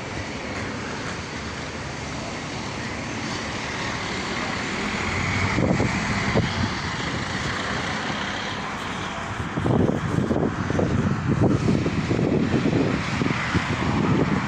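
Demolition machinery engine running steadily, swelling about five seconds in, with irregular low crunching and rumbling from about ten seconds in.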